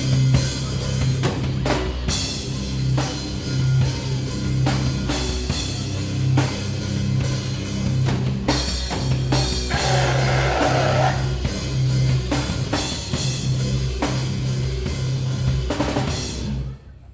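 Live heavy rock band playing an instrumental section: a pounding drum kit over a repeated low guitar and bass riff. Everything cuts off suddenly near the end as the song finishes.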